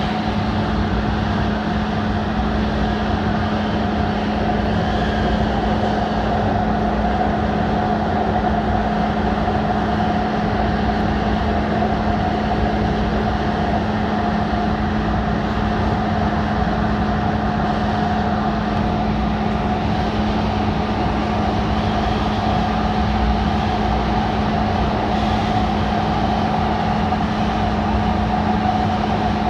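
DART light rail train running at steady speed, heard from inside the car: a constant rumble of wheels on rail with a steady low hum and a higher whine over it.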